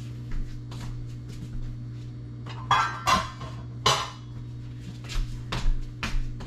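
Cookware and metal utensils knocking and clinking in a string of irregular sharp knocks, the loudest a few about three and four seconds in, over a steady low hum.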